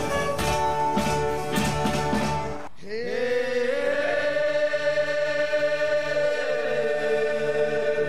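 Live band music with drum hits cuts off abruptly about two and a half seconds in. A group of Rapa Nui voices takes over, singing a held chant whose notes slide up and down.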